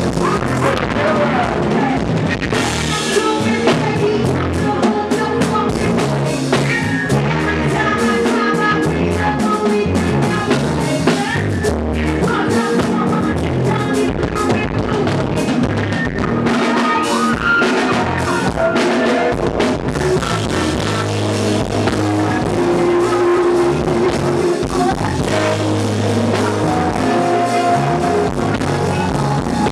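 Live band playing loud music with a drum kit, and a vocalist performing into a microphone over it.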